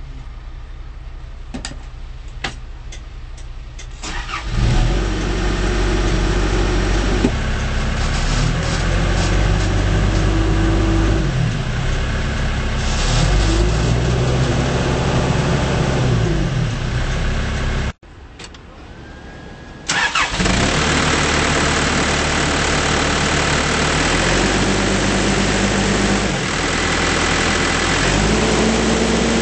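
Diesel engine of a Case 580N backhoe loader running, first quietly with a few clicks. About four seconds in it gets much louder, and its speed rises and falls several times. It drops away briefly about two-thirds of the way through, then comes back loud and rising and falling again.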